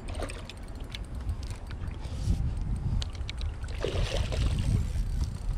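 Hooked pike thrashing and splashing at the water surface close to the bank, with the biggest splash about four seconds in, over a steady low rumble.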